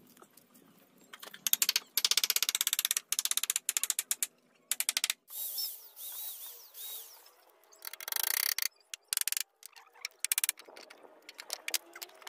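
A power tool working wood in several short bursts of very rapid, even strokes, with quieter pauses between.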